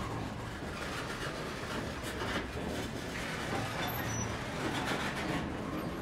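Covered hopper cars of a CSX freight train rolling past close by: a steady rumble and rattle of steel wheels on rail, with scattered knocks and clanks.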